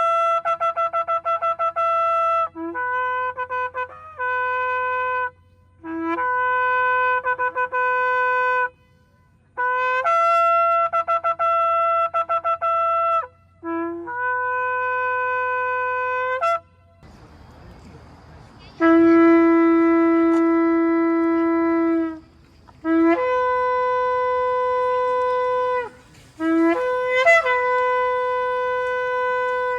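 Shofar (ram's-horn) blasts in a series of calls, most starting on a short low note and jumping up to a higher held note. Several are broken by rapid stuttering notes. About halfway through, a different recording with a steady background hiss takes over.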